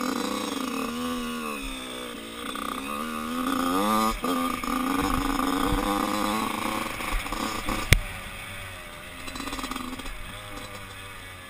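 Yamaha YZ85 two-stroke motocross bike's engine revving up through the gears, its pitch climbing and dropping back at each shift, then running at a steadier speed. A single sharp knock about eight seconds in.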